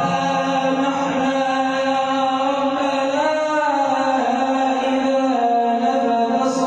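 A sheikh's solo male voice in Arabic religious chanting, holding long drawn-out notes that bend slowly in pitch about halfway through.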